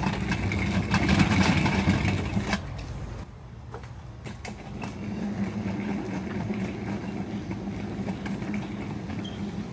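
Steady low mechanical hum with outdoor background noise, which drops suddenly about three seconds in to a quieter steady hum inside a large hall.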